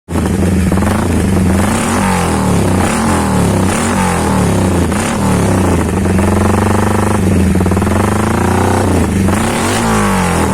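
Honda CB150R single-cylinder engine breathing through a BSS round aftermarket muffler, revved up and down repeatedly with the pitch rising and falling; it revs highest a little past the middle.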